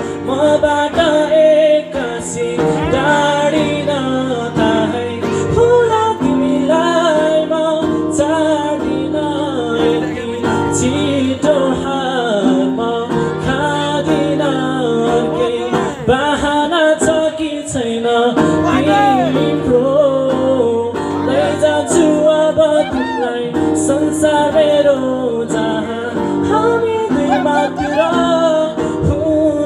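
A male singer sings a slow song live with an acoustic guitar, both amplified through stage microphones and PA speakers. The melody wavers and glides over steadily held guitar chords.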